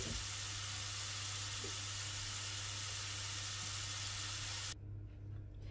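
Potato strips frying in hot oil in a pan, a steady sizzle that cuts off suddenly near the end.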